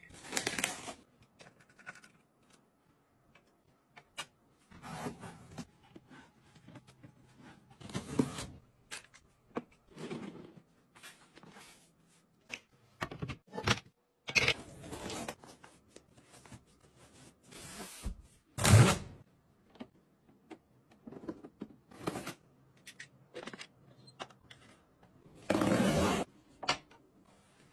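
A string of short handling sounds from household items: clicks, knocks and brief scrapes, with one loud knock about two-thirds of the way through. Near the end, a blade slits the packing tape on a cardboard box, a rasping sound about a second long.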